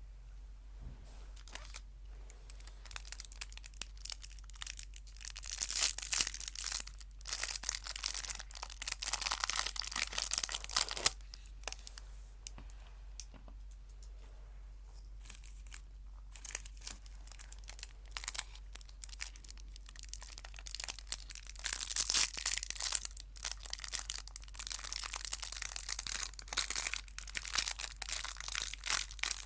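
Crinkly plastic or foil sweet wrapper being handled, crackling and tearing in close bursts. The crackling is loudest from about six to eleven seconds in and again over the last several seconds, with a quieter stretch between, over a faint steady low hum.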